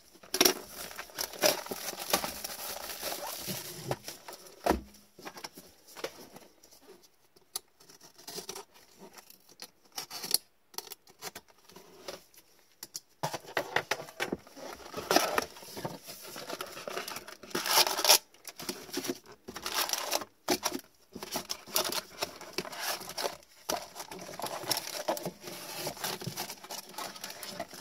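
Plastic shrink-wrap being torn and peeled off a cardboard trading-card hobby box, with constant crinkling and crackling and the scrape of gloved hands on the box, quieter for a stretch in the middle and busier over the second half as the box is opened.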